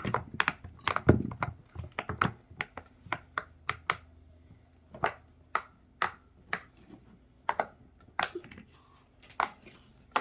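Small toys and their packaging being handled: a run of short, sharp clicks and taps, packed close for the first few seconds, then coming about once or twice a second.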